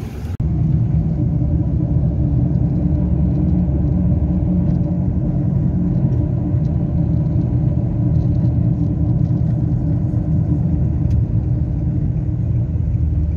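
Steady low rumble of a car driving along a road, heard from inside the cabin. It starts suddenly about half a second in and holds level.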